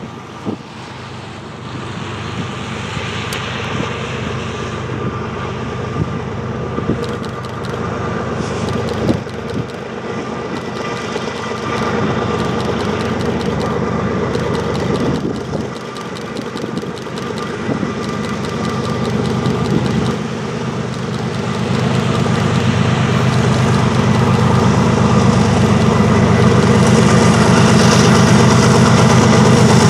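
Diesel locomotive engine running with a steady low hum, growing gradually louder throughout.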